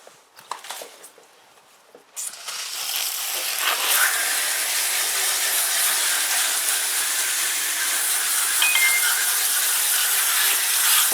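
Water spraying onto a central air conditioner's outdoor condenser coil to wash the dirt out of it: a steady hiss that starts suddenly about two seconds in, after a few light knocks.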